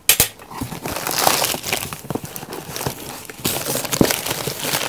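Packaging rustling and crinkling as a boxed microphone is handled and pulled out, with irregular clicks and small knocks.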